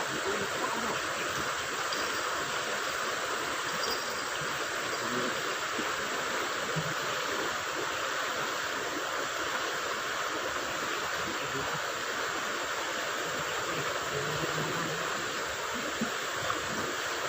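Steady, even hiss of riverside ambience.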